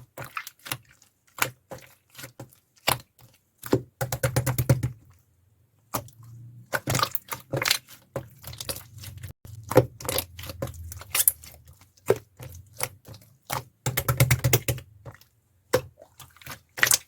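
Stiff, thick slime being squeezed and pressed by hand, giving off irregular crackling clicks and small pops, with two denser flurries of clicks and short pauses between handfuls.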